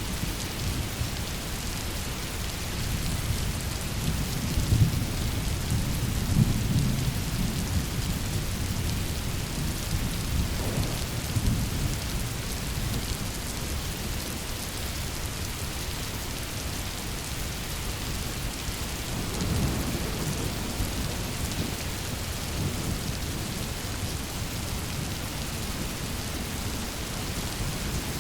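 Steady heavy rain falling, with low rolling thunder rumbling in twice, a few seconds in and again past the middle.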